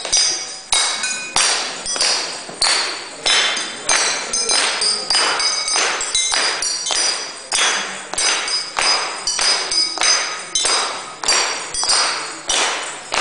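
Drinking glasses tuned with water, struck in turn with sticks to play a tune: a steady beat of about one strike every 0.6 s, each note ringing briefly at a different pitch.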